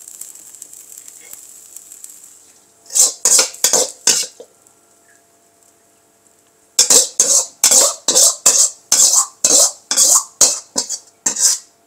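Metal wok ladle scraping and knocking against a steel wok while fried rice is scooped out onto a plate. There is a short burst of about four strokes a few seconds in, then a longer run of about ten strokes at roughly two a second.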